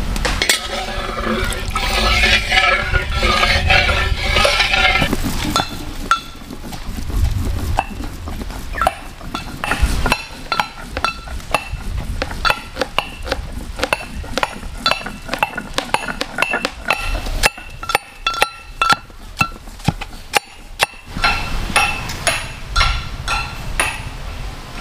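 Soybean oil poured in a stream into a metal wok, a steady liquid pouring sound with a ringing tone for about five seconds. Then a knife chops small fish on a wooden board in a long run of sharp knocks.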